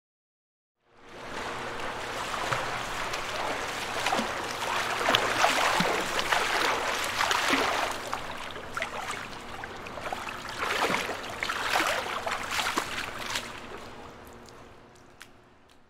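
Shallow water splashing and lapping as a sea otter swims through the shallows and onto the beach, with many small splashes. It fades in about a second in and fades away near the end.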